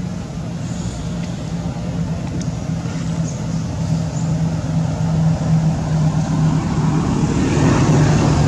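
A steady engine hum, growing louder toward the end.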